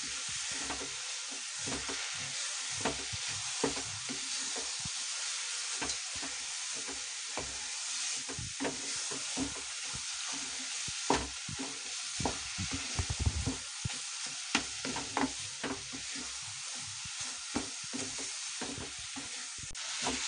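Grated carrots and milk cream sizzling in a non-stick frying pan as they are stirred together with a spatula. The spatula scrapes and knocks against the pan many times at an irregular pace over a steady sizzle.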